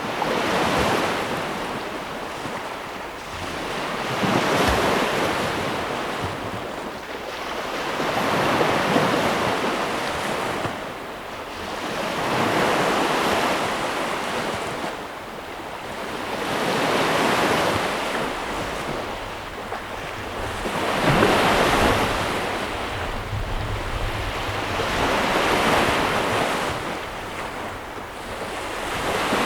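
Ocean waves rolling in, the surf rising and falling in a slow, even rhythm, one swell about every four seconds.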